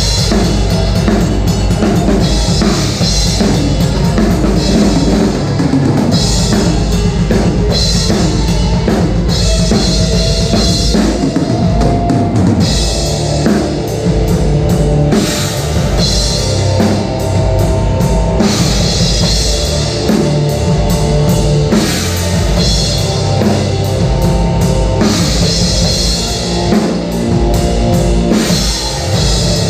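Rock music with a full drum kit playing a steady beat, cymbals and bass drum prominent, and sustained guitar or bass notes.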